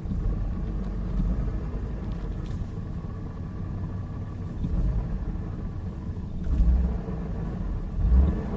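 2000 Ford Taurus V6 engine running, heard from inside the cabin, revved in three short blips in the second half, with a grinding noise carried through the dash. The grinding is the sign of a broken motor mount rubbing metal to metal.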